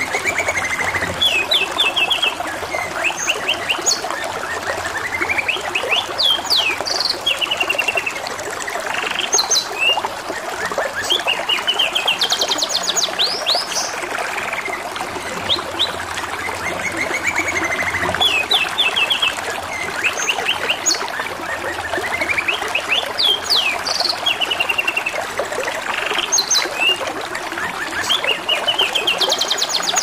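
Domestic canary singing in repeated phrases of fast trills and chirps, over a steady trickle of running water.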